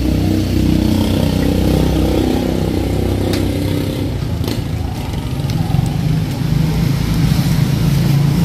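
Motorcycle engine running, its note shifting at first and settling steadier in the second half, with a few sharp clicks near the middle.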